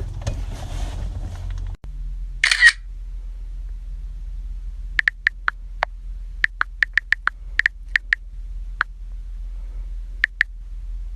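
An irregular run of about fourteen short, sharp clicks over a steady low hum, after a single brief noisy burst.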